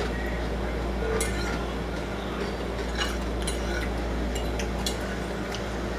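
Metal fork clinking against a ceramic dinner plate: several sharp, separate clinks over a steady low background hum.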